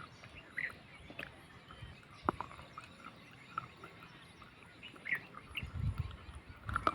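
Birds chirping in short, scattered calls, with a few sharp clicks and a low rumble coming in near the end.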